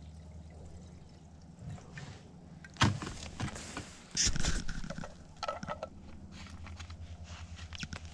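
Clunks and rattles of equipment being handled, over a steady low engine-like hum.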